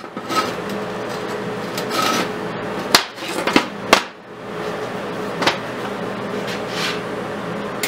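Several sharp metallic clacks and knocks as a magnetic welding square is placed and snapped against steel on a metal workbench, over a steady low hum.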